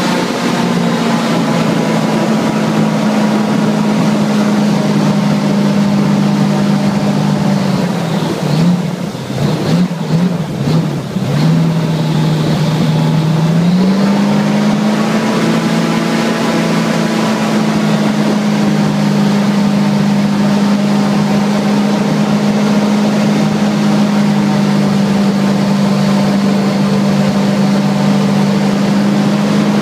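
Airboat engine and propeller running at a steady drone. About eight seconds in, the note drops and turns uneven for a few seconds as the throttle is eased. Near fourteen seconds it climbs back to a steady cruising pitch.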